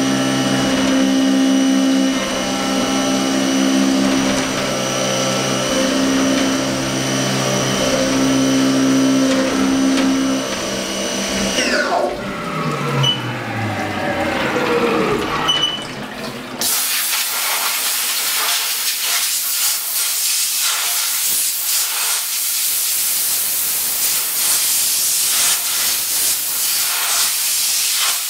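Haas TM-1 CNC mill cutting an aluminium part with an end mill under flood coolant: the spindle and cut hold steady whining tones. About twelve seconds in the spindle winds down, its pitch falling away. A few seconds later a steady rushing hiss of coolant spray starts and carries on.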